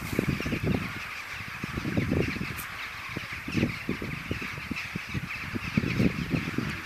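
A huge winter roosting flock of rooks, thousands of birds cawing together in a continuous dense din, over low gusty rumbling of wind on the microphone.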